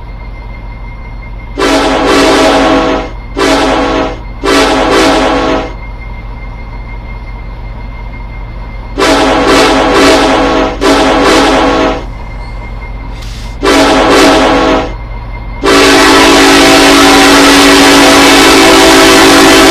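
Norfolk Southern locomotive's deep-toned air horn, a loud chord of several notes. It sounds in a string of separate long and short blasts, then holds one long continuous blast from about 16 seconds in.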